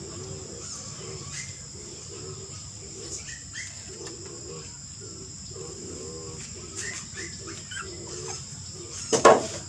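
Steady high chirring of insects, with scattered short bird chirps and a run of short low calls. There is a sharp knock about nine seconds in.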